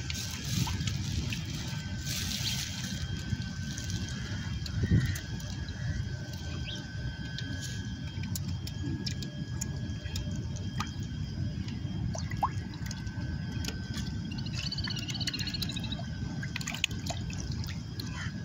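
Shallow shoreline water with small splashes and drips as fish feed on bread at the surface, over a steady low rumble. A faint chirp comes in near the end.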